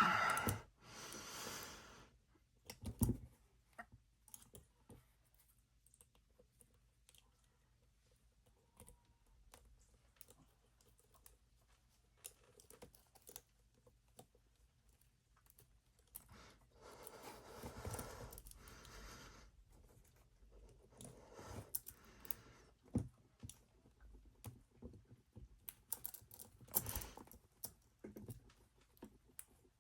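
Handcuffs being locked and picked with a hairpin: faint, scattered small metal clicks and scrapes, with a few short bursts of rattling, about a second in, in the middle and near the end.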